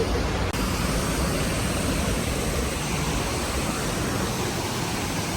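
Steady rushing noise of a large waterfall, Looking Glass Falls, pouring into its plunge pool.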